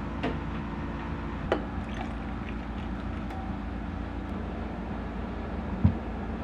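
Ice cubes clinking and crackling in a tall glass as coffee is poured over them, with a few sharp clinks, over a steady low mechanical hum from a kitchen appliance.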